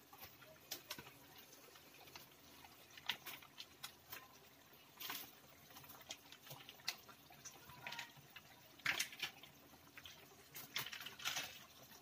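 Faint irregular clicks and pops, with a few short louder rustles about 5, 9 and 11 seconds in, as tomato sauce is squeezed from a plastic sachet into a frying pan of chicken menudo.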